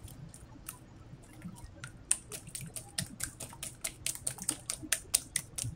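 Eggs with pepper and salt being beaten with a whisk in a glass bowl: a quick run of light ticks as the whisk strikes the bowl, faint at first, then louder and steadier at about five a second from about two seconds in.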